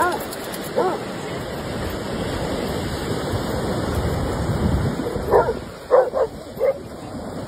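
Dogs barking and yipping in play: a short bark right at the start and another about a second in, then a quick run of four barks a little past the middle, over the steady wash of surf.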